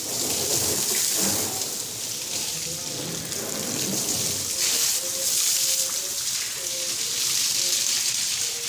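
A jet of water sprayed onto a car's windshield and bonnet during a wash: a steady hiss of spray splashing off the bodywork.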